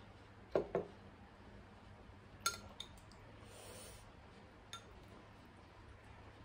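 A metal spoon clinking against a small ceramic bowl of soup dumplings: two dull knocks about half a second in, a sharp ringing clink about two and a half seconds in, then fainter clicks, the last near the end.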